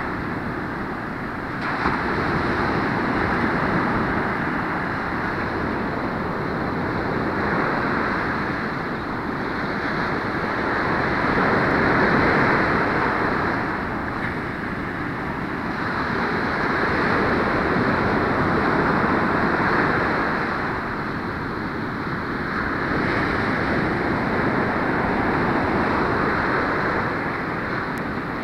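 Ocean surf breaking and washing up a sandy beach: a continuous rushing that swells and eases in slow surges several seconds apart as each wave comes in.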